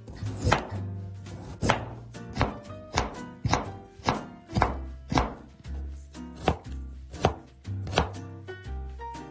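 Chef's knife cutting raw carrot on a cutting board: about a dozen separate, evenly spaced cuts, each a sharp knock of the blade through the carrot onto the board.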